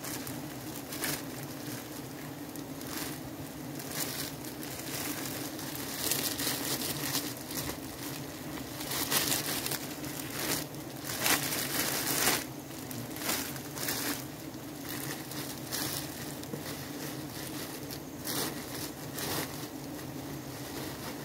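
Irregular crunching and rustling over a steady low hum, the crunching thickest through the middle stretch.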